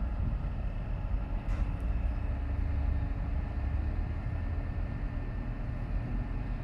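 Mobile cranes' diesel engines running steadily while holding a suspended steel truss beam: a continuous low rumble with a faint steady hum above it.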